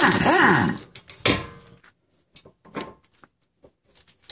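A cordless power tool with a socket extension spinning out the bolt of a parking-brake cable bracket, its motor pitch sweeping up and down as the trigger is worked, stopping about a second in. A short second burst follows, then light metallic clicks and rattles as the loosened bracket is handled.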